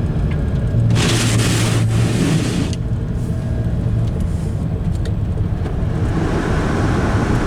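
A 2011 Kia Optima runs cold, not yet warmed up, heard from inside as it is driven: a steady low engine hum. About a second in comes a short rush of hiss, and road noise builds near the end.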